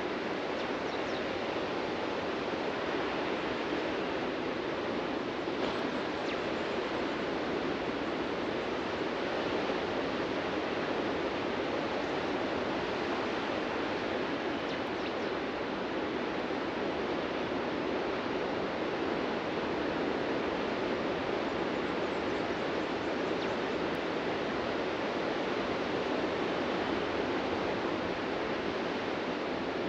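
Ocean surf on a beach: a steady wash of waves with only slight swells in loudness.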